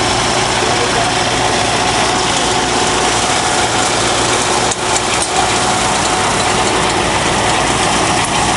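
Large farm machine's engine running steadily under a dense, even hiss, with two brief dips about halfway through.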